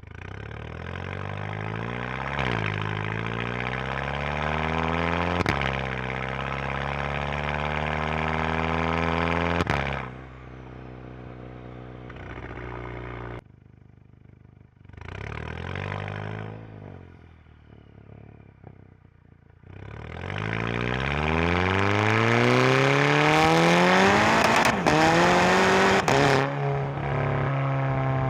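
Exhaust note of a 2011 Volkswagen GTI Mk6's turbocharged 2.0-litre four-cylinder, heard at the tailpipe through a Unitronics downpipe, resonator delete and gutted stock muffler. The engine revs up with rising pitch, dipping sharply twice, drops off, makes a short rise, then pulls hard again with a long climb in pitch before settling to a steady drone near the end.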